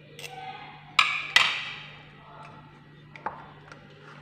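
A metal fork clinking against ceramic dishes: two sharp, ringing clinks about a second in, then a few lighter taps, as Vaseline is stirred into a mixture in a bowl.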